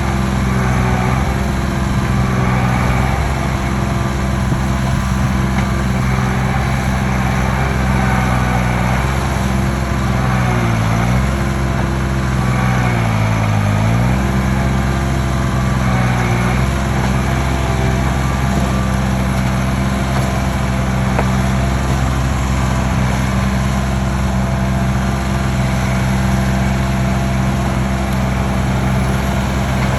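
Engine of stump-removal machinery running steadily and loud, its pitch dipping and recovering twice a little before the middle.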